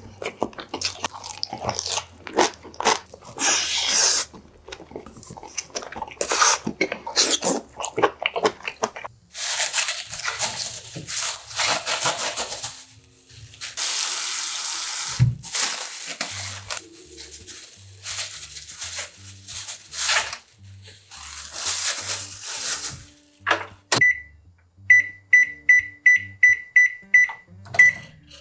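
Crunchy chewing and chopstick clicks against dishes, then tap water running and splashing over shredded cabbage in a plastic bag at a stainless sink. Near the end a Sharp microwave oven's keypad gives a quick run of about eight short, high beeps at one pitch.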